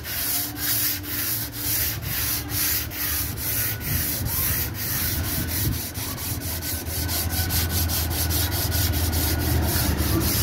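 Car body filler being dry-sanded by hand with sandpaper on a door panel: rhythmic back-and-forth rasping strokes, about two a second at first, quickening to about four a second in the second half.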